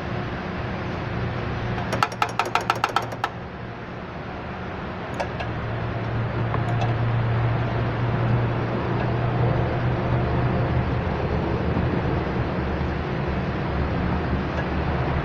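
A quick run of about eight sharp metallic clicks about two seconds in, over a steady low mechanical hum that grows louder after about five seconds. A wrench is being fitted to a brake line flare nut at the master cylinder while air is bled from the lines.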